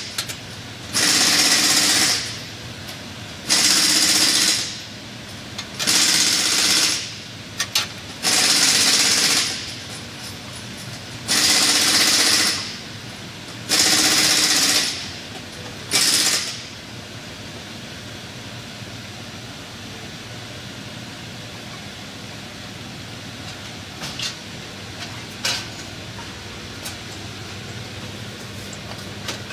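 Pneumatic air tool hammering in seven short bursts of about a second each, working the seized front hub bearing assembly loose from a 2017 Chevrolet Impala's steering knuckle. It stops about two-thirds of the way through, leaving a few faint metal clicks as the hub is handled.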